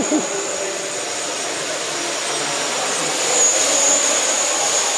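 Hexacopter's six electric motors and propellers whining steadily in flight, growing a little louder about three seconds in.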